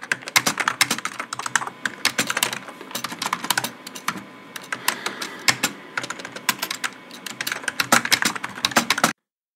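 Typing on a computer keyboard: a quick, uneven run of key clicks that stops abruptly near the end.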